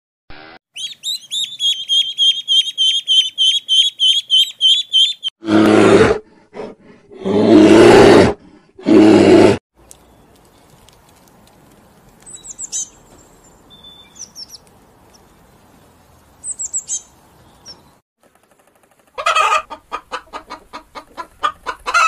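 A run of animal calls. First a fast string of high chirps, then three loud, low calls. Then soft, thin calls from a male Eurasian bullfinch. Near the end comes a quick series of chicken clucks.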